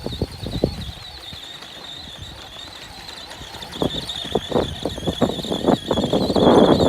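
Kids' electric toy quad converted to 12 V with a brushless motor, running with a steady high whine, while irregular knocks and rattles build up and get louder through the second half as it moves.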